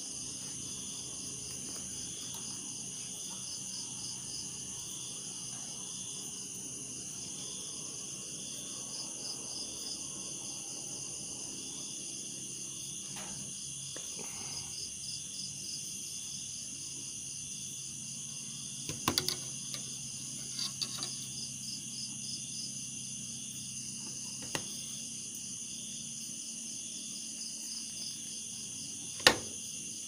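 Insects chirring steadily in the background, a high, fast-pulsing trill. A few sharp clicks and taps break through, a small cluster about two-thirds of the way in and the loudest one near the end.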